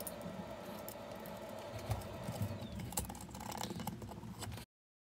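Small irregular clicks, taps and scrapes of screws being backed out and the tweeter being worked loose from the speaker's front baffle, over a steady low background hum. The sound cuts off abruptly near the end.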